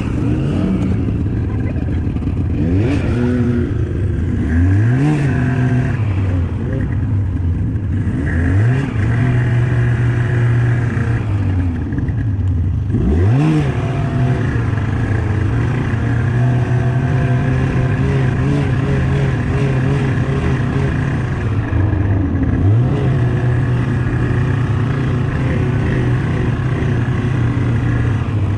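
Snowmobile engine running under way, sped up to double speed. The pitch rises sharply with the throttle about five times and holds steady in between.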